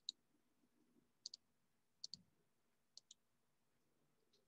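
Faint computer mouse clicks: four quick press-and-release pairs about a second apart, over near silence.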